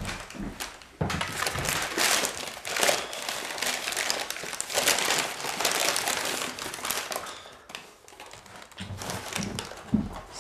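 McDonald's paper takeaway bag crinkling and rustling as it is opened and rummaged through. The rustling starts suddenly about a second in and dies down well before the end.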